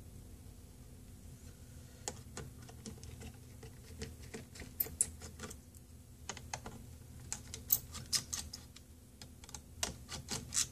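Irregular light clicks and ticks of small screws and antenna parts being handled on the opened metal chassis of a Panasonic CF-Y5 Toughbook laptop. They begin about two seconds in and come in scattered clusters to the end.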